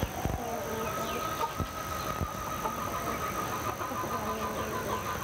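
Rural morning outdoor ambience: chickens clucking with small birds calling, over a steady high-pitched note that runs through the whole stretch.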